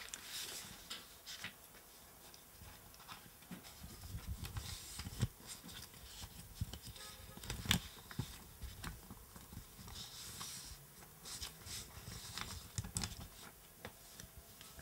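Sheets of paper rustling and shuffling faintly as they are leafed through on a desk, with a few low thumps from a handheld microphone being moved.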